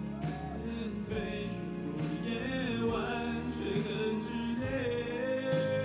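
Male voice singing a pop song through a handheld microphone over instrumental accompaniment.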